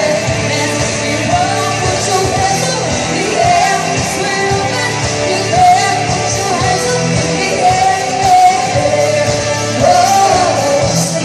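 Music with a singing voice: a sung melody over steady low accompaniment and a regular beat.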